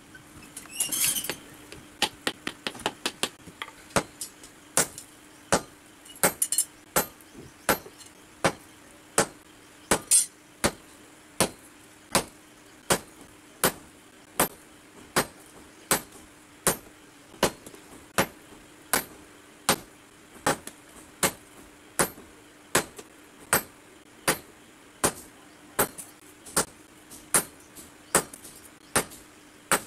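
Hammer blows on red-hot steel on a blacksmith's anvil, forging an adze (basula) blank. A quick run of lighter taps comes first, then steady blows about four every three seconds. A ringing note sounds under the blows.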